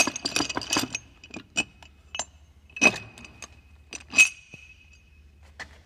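Metal engine parts being handled and knocked together: a quick rattle of clinks, then several separate metallic knocks. The loudest knock, about four seconds in, leaves a short ringing note.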